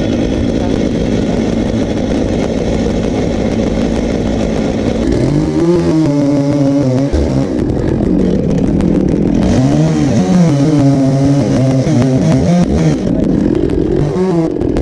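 Big Stihl MS880 two-stroke chainsaws running under load, cutting through a log. From about five seconds in, the engine note rises and falls repeatedly with the throttle.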